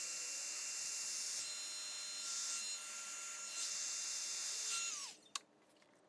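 Electric heat gun running, a steady high hiss of blowing air with a motor whine, used to shrink heat-shrink crimp connectors. About five seconds in it is switched off and the whine falls as the fan spins down, followed by a single click.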